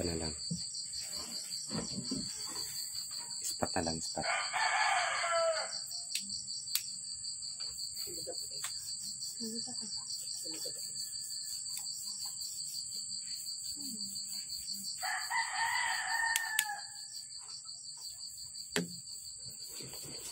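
A rooster crowing twice, about four seconds in and again about fifteen seconds in, each crow lasting under two seconds. Behind it runs a steady, high-pitched insect trilling, like crickets.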